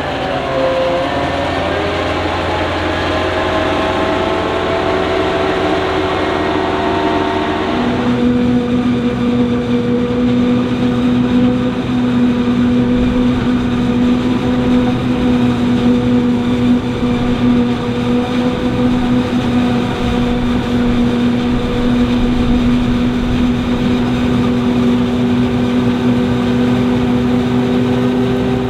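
Heavy diesel farm machinery running during maize harvesting. For the first eight seconds the engine note shifts up and down, then the sound changes abruptly to a steady, even engine drone.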